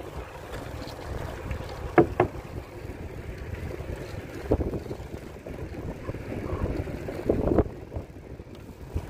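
Wind buffeting the microphone as a trekking bicycle rolls along the wooden deck boards of a pier. A few sharp knocks and rattles come through: a pair about two seconds in, one midway, and a cluster late on.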